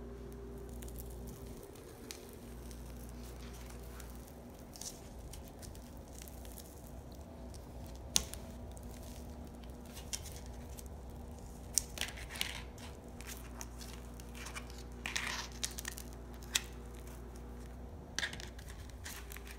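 Rice Krispie treats being cut with a plastic cookie cutter and the scraps torn off: scattered soft crunches, tears and light taps on the mat, over a steady low hum.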